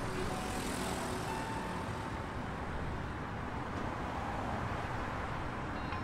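Steady city traffic noise: a continuous even rush of passing road vehicles.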